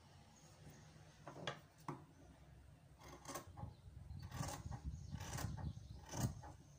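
Scissors snipping through folded fabric in a series of short cuts, with the cloth rustling as it is handled. The snips start about a second in and come more often from about three seconds on.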